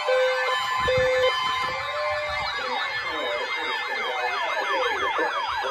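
Several electronic sirens sounding together, layered over one another. Slow rising-and-falling wails give way to faster yelps of about three to four sweeps a second. Two short steady tones sound in the first second or so.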